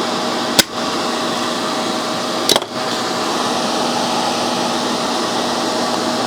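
Steady whir of a small electric motor with a faint hum in it, broken by two sharp clicks about two seconds apart.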